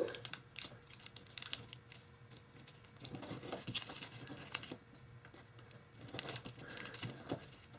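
A sheet of tissue foil (tissue paper backed with kitchen foil) being folded and creased by hand: faint, irregular crinkles and light ticks as the fingers press the creases in.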